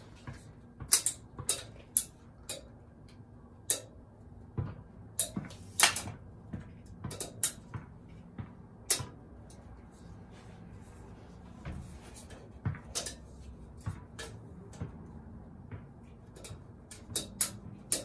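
Irregular sharp clicks and light metallic taps from handling a tape measure and marker against a steel headlight bucket, thickest in the first half and again near the end, over a faint steady hum.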